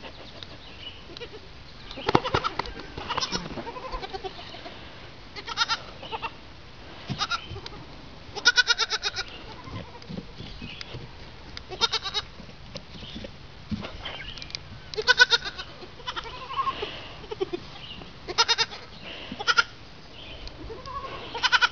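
Young goat kids bleating over and over, a dozen or so high, quavering bleats coming every second or two.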